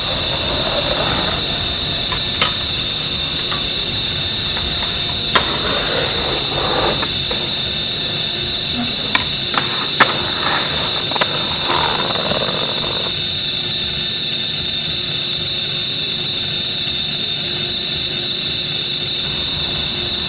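Skateboard clacks, sharp snaps of the board popping and landing, about six in all and most of them around 9–11 seconds in, with stretches of wheels rolling on concrete. All of it sits under a loud, steady high-pitched whine and hiss.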